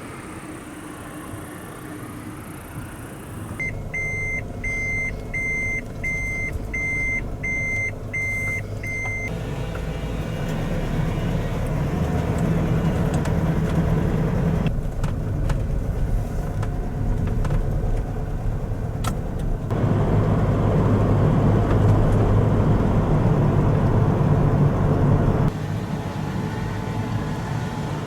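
Camper van reversing: a run of about eight evenly spaced high beeps from its reversing alarm, then the engine running steadily and growing louder after the beeps stop.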